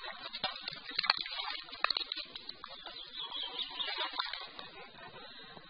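Dry grass crackling and rustling with scattered sharp clicks as a caught trout is handled on the ground, dying down near the end.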